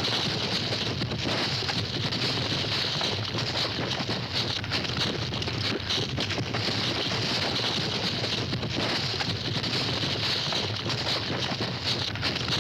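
A herd of cattle stampeding: many hooves hitting the ground in a dense, continuous stream of hoofbeats that never lets up.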